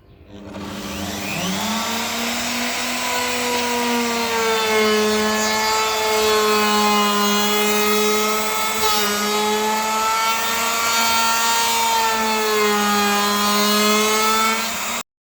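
Electric woodworking power tool running: its motor whine rises as it spins up, then holds at a steady high pitch with a slight waver, and cuts off suddenly near the end.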